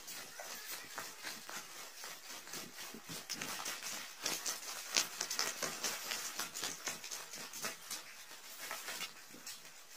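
Footsteps in sandals crunching over dry leaves and twigs on a dirt trail: an irregular crackle, with a few sharper snaps about four to five seconds in.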